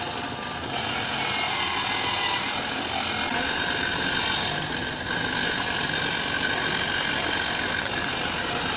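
Small electric motor of a toy pottery wheel running steadily, spinning a lump of wet clay, with a thin steady whine that comes in about three seconds in.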